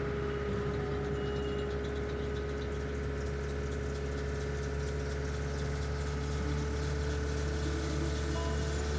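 Skid steer engine running steadily at a constant pitch, a continuous drone with a steady tone over it.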